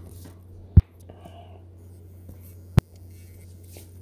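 Steady low hum with two sharp, very short clicks about two seconds apart, one about a second in and one near the end.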